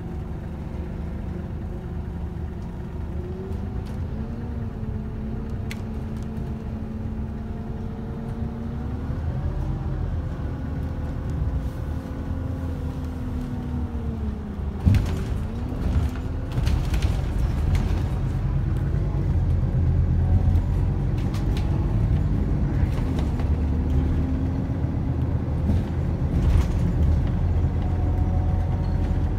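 Inside the cabin of a Scania K280UB Citywide LE city bus under way: its five-cylinder diesel and driveline give a steady low rumble, with a whine that rises in pitch and then drops back about halfway through. A few knocks and rattles come around the middle, and the bus runs louder after them.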